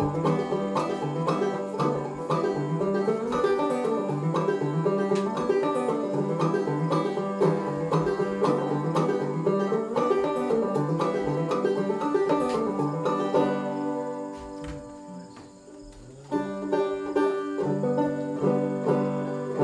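Banjo played clawhammer style in standard G tuning, a fiddle tune picked at a steady driving rhythm. About 14 s in the playing drops to a few soft ringing notes for about two seconds, then resumes at full strength.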